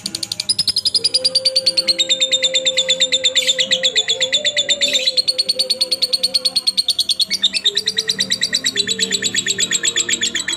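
Lovebird singing in a long, unbroken rapid chattering trill, about ten sharp high notes a second, the full continuous song prized in a 'gacor' bird.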